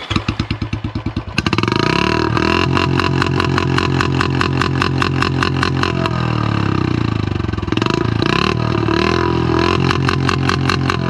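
Royal Enfield Classic 350 BS6 single-cylinder engine through a long bottle ('Bada Punjab') silencer, loud: separate exhaust thumps at first, then revved hard about a second and a half in and held at high revs with the pitch rising and falling.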